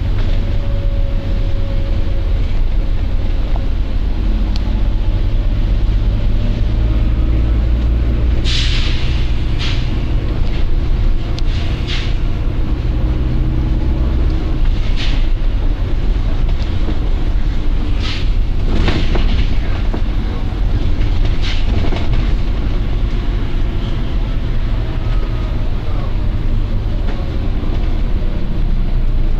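Volvo B9TL double-decker bus with its engine running in a steady low rumble, and about seven short hisses of compressed air from the bus's air system through the middle stretch.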